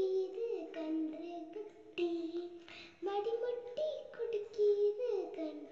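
A child singing a Tamil children's rhyme about a cow and calf, holding long notes that bend in pitch, with short breaks between phrases.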